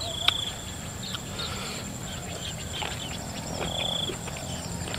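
Field crickets chirping: short pulsed trills come about every two to three seconds over a steady high insect whine, with a sharp click near the start.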